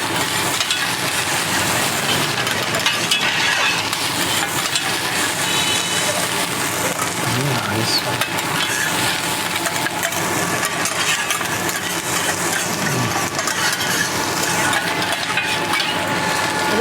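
Spatula scraping and clicking on a hot teppanyaki iron plate as food is stir-fried over a steady sizzle. The tapping and scraping is dense and continuous.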